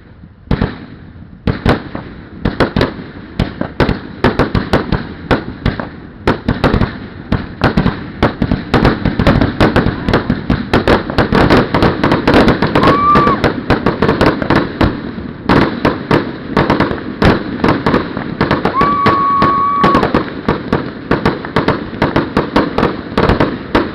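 Fireworks display: a rapid, near-continuous barrage of firework bangs and crackles that grows denser after the first couple of seconds. Two brief steady high tones sound over it, about six seconds apart.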